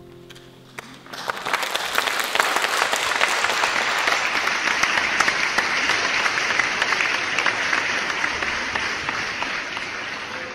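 Audience applauding, breaking out about a second in and easing off slightly near the end.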